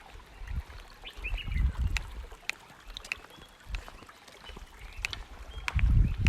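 Shallow river water sloshing and splashing in irregular low surges, heaviest near the end, with scattered sharp clicks and a few short bird chirps.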